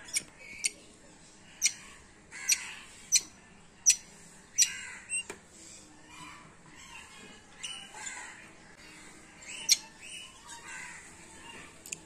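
Small pet parrots calling: short, sharp, high chirps at irregular intervals, about a dozen in all, mixed with harsher rasping squawks.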